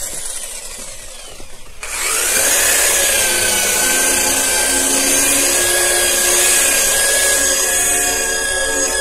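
Electric angle grinder fitted with an abrasive scrubbing pad, spinning up about two seconds in and then running steadily with a whine while it scrubs grime off wet wooden deck boards.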